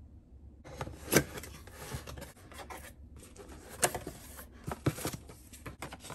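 Cardboard box flaps and paper sheets rustling and scraping as a box is opened by hand and its instruction leaflet taken out, with a few sharper knocks and crinkles about a second in and again around four and five seconds in.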